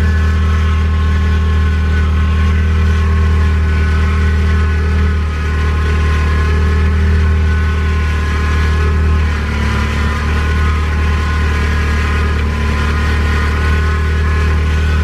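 Nissan 240SX's KA24DE 2.4-litre inline-four running at a steady low speed, with a thin, steady high-pitched whine above the engine note. It is an unexplained whine that appeared after a drift event and that the owner cannot diagnose.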